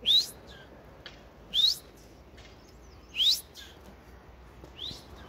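A bird calling four times, about every second and a half; each call is a short, sharp upward sweep.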